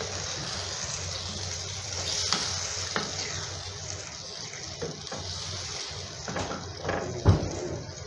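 Water poured into a hot pan of fried chicken and browned curry masala, hissing and bubbling steadily, while a wooden spatula stirs it with a few knocks against the pan, the loudest knock about seven seconds in.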